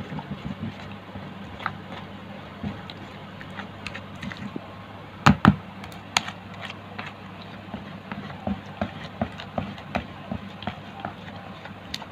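Plastic spoon stirring and scraping a thick, wet bait paste in a plastic bowl: irregular soft clicks and scrapes, with two louder knocks about five seconds in, over a steady low hum.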